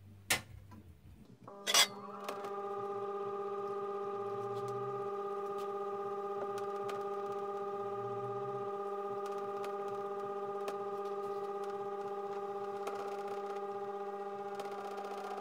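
Two sharp metallic clinks, then about a couple of seconds in the electric motor of a homemade cymbal lathe starts and runs steadily with an even hum, spinning a crash cymbal on its spindle.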